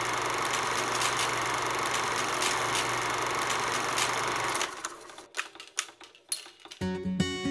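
Steady engine and road noise inside a moving passenger vehicle, with a low hum under it, cutting off about four and a half seconds in. A few clicks follow, then acoustic guitar music starts near the end.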